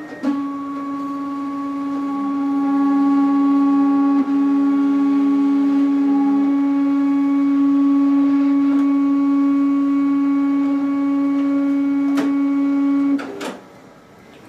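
Zebra ZXP Series 8 card printer running its heated-roller cleaning cycle, its feed motors giving a steady pitched hum for about thirteen seconds before stopping. A second, lower tone joins from about two seconds in to about six and a half, and there are clicks as it starts, about twelve seconds in, and as it stops.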